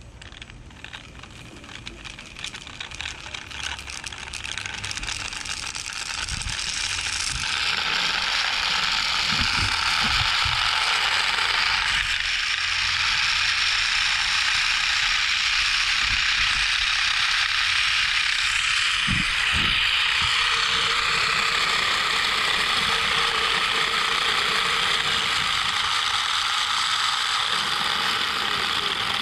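Zipline trolley pulleys running along the steel cable: a steady whirr that builds up over the first several seconds as the ride gets going, then holds loud.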